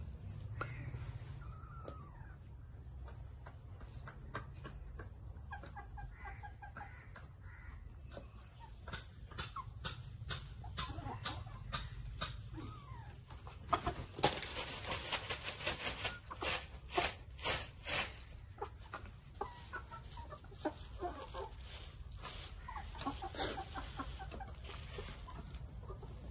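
Chickens clucking softly as they feed, with a busy run of sharp taps and scuffles about halfway through as the birds move about.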